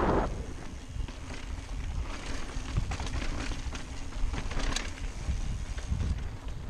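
Mountain bike rolling over bare sandstone slickrock: a low tyre rumble with scattered small knocks and rattles from the bike, and some wind on the microphone.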